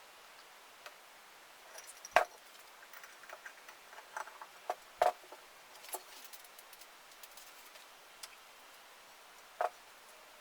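Scattered light clicks and knocks of tools and parts being handled during air compressor maintenance, with three sharper knocks about two, five and nine and a half seconds in.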